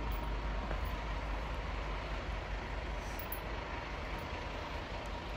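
Parked fire engine's diesel engine idling: a steady low rumble under an even hiss, with a faint steady whine over it.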